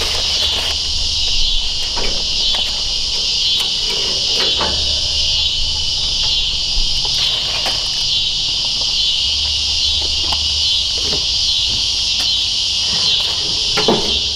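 Loud chorus of evening insects, a dense, steady, high-pitched pulsing drone, with scattered short clicks and knocks and a faint low hum coming and going.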